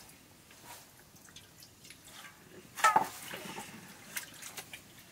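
Water dripping and trickling from a small brass vessel into a metal bowl, with faint scattered ticks of metal dishes and one brief, louder sharp sound about three seconds in.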